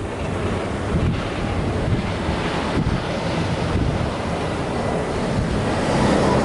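Wind buffeting the microphone: a steady rushing rumble, swelling a little near the end.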